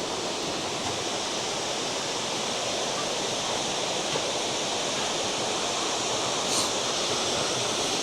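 Chapel Falls, a waterfall, with its falling water making a steady, even rush.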